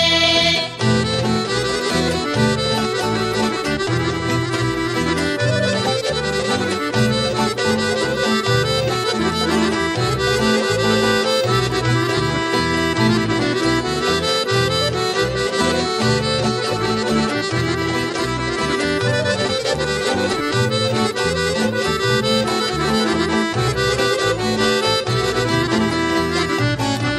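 Instrumental folk dance music led by accordion, with a steady rhythmic beat in the bass; it starts just after a brief break about a second in.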